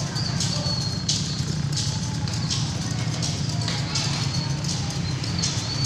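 Penitent flagellants whipping their backs: a sharp hissing lash about every three-quarters of a second, over a murmur of voices.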